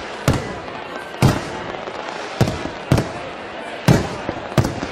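Fireworks shells bursting overhead: six sharp bangs at uneven gaps of roughly half a second to a second, each with a short echo after it.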